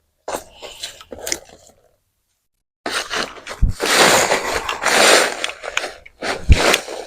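Crunching and scraping of dry potting soil being dug and shifted by hand in a plastic planting bucket, with a couple of dull thumps. The sound drops out completely for about a second near two seconds in.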